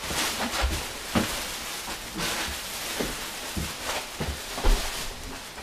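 Irregular thumps and rustling from footsteps and handling of a handheld camera in an empty room, the loudest thump a little before the end.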